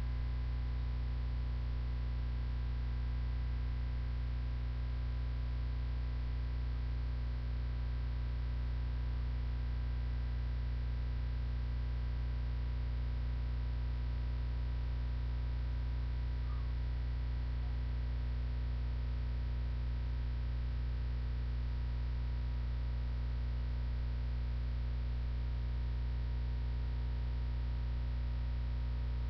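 Steady low electrical mains hum, with a few faint steady higher tones over it.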